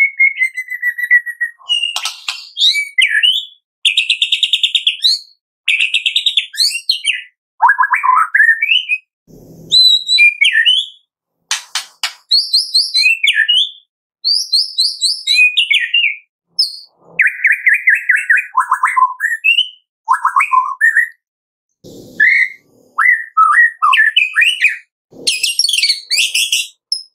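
Male white-rumped shama singing: a loud string of short, varied phrases of clear whistles, rapid trills and harsh rattling notes, each phrase broken off by a brief pause. This is the sharp, burst-like 'tembakan' song that keepers play to spur a quiet shama into singing.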